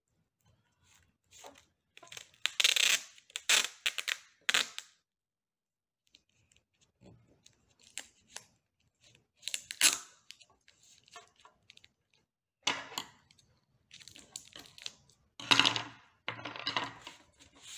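Clear cello tape being pulled off its roll in several short ripping bursts, with light taps and rustling as it is pressed along a rolled paper tube.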